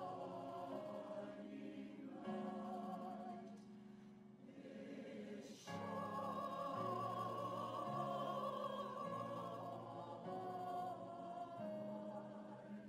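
Mixed choir singing a slow piece in long held phrases with vibrato, over sustained chords on an electronic keyboard. There is a brief break about halfway through, and the sound fades near the end.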